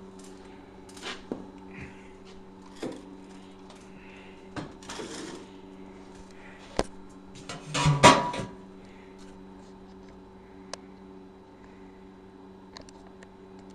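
Scattered short knocks and clunks of things being handled, loudest in a brief cluster about eight seconds in, over a steady low electrical hum.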